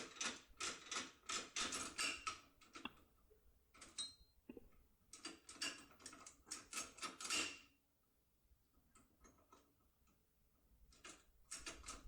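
Key being turned in a French A2P door lock, its mechanism giving quick runs of small metallic clicks, about four a second, with a short pause partway and fainter clicks later. The lock still works with its key after being worked with a force key.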